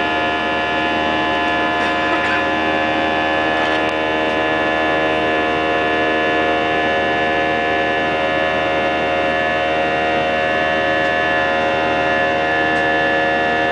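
Airbus A320 jet engines heard from inside the cabin: a steady drone with many held whining tones over an even rush of air noise.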